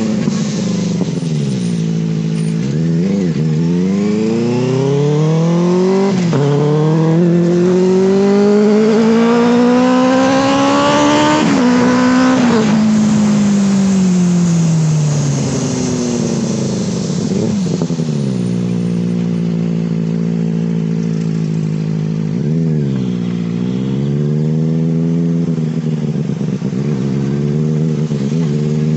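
Benelli 600 inline-four motorcycle engine accelerating hard through the gears, with two quick upshifts and then a long climb in revs to a high pitch. It then eases off and runs at a steady speed, with a brief dip and pick-up in revs a few seconds before the end.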